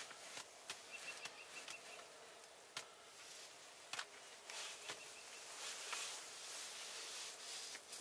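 Faint outdoor ambience: a soft steady hiss with scattered light clicks and ticks, and twice a brief run of rapid, high-pitched ticking.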